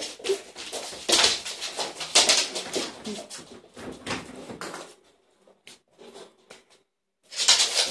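Neapolitan mastiff dogs play-fighting: a busy run of scuffles, scratches and knocks that thins to a few faint clicks about five seconds in, then picks up again near the end.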